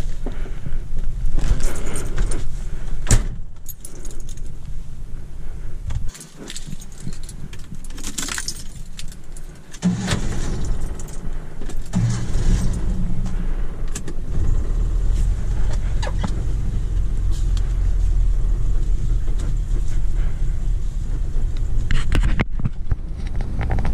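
Keys jangling with knocks and clatter as a car door and its interior are handled. About ten seconds in, the car's engine starts and then runs steadily with a low hum.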